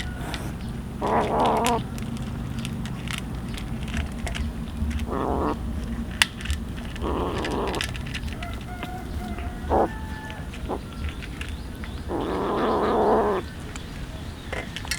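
An animal calling: four drawn-out, wavering cries, the last and longest near the end, over a steady low rumble with scattered clicks.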